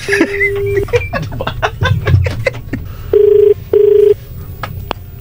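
Telephone ringback tone heard over the phone line as an outgoing call rings: a single steady beep near the start, then a loud double ring of two short buzzing tones about three seconds in.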